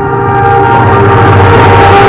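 An approaching train's locomotive horn held in one steady chord of several notes, over the rising rush and rumble of the train drawing near. The whole sound grows louder, and the horn fades into the train noise about a second and a half in.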